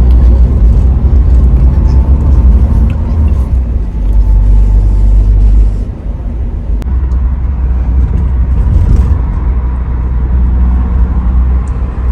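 Inside a moving taxi's cabin: steady low road and engine rumble. It drops somewhat about six seconds in.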